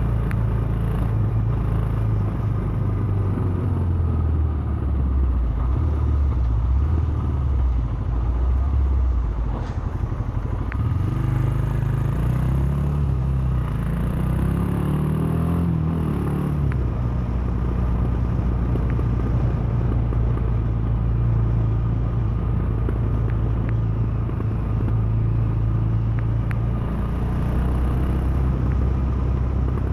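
2017 Royal Enfield Himalayan's 411 cc single-cylinder engine running on the move. The engine note climbs and changes several times around the middle, then settles back to a steady pull.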